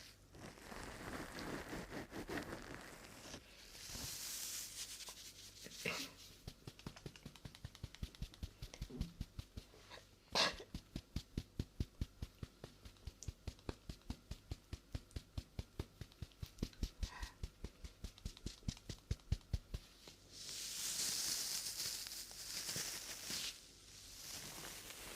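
Close-miked ASMR trigger sounds. Soft rustling gives way to a steady run of light taps, about three a second for some twelve seconds, with one sharper tap among them. A burst of hissy brushing or rustling follows near the end.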